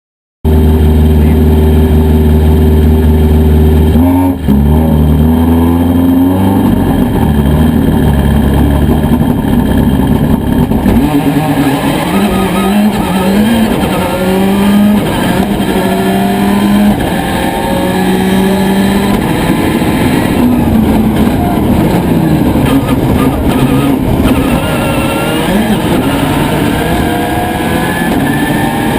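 Subaru Impreza WRC's turbocharged flat-four engine held at steady high revs, then about four seconds in the car pulls away hard. The engine note rises again and again and drops at each gear change as it accelerates along the stage.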